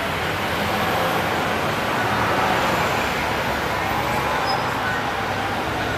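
Outdoor city street noise: a steady hum of traffic with people's voices faintly mixed in.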